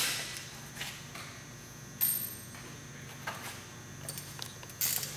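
A few light metal clinks and taps of hand tools being handled, one about two seconds in followed by a brief high ring, over a faint steady shop hum.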